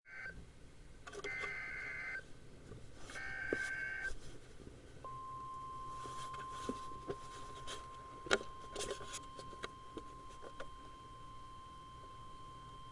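NOAA Weather Radio Emergency Alert System signal: two bursts of warbling digital SAME header data, about a second each, then about a second in silence, then the steady single-pitch Weather Radio warning alarm tone that holds for about eight seconds. It all sounds through radio hiss with scattered crackles. The signal marks the start of a severe thunderstorm warning broadcast.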